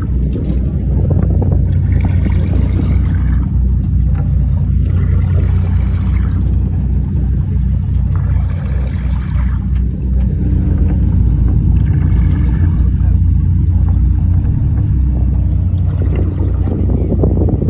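Charter boat's engine running with a steady low drone. A rushing hiss swells and fades about every three seconds over it.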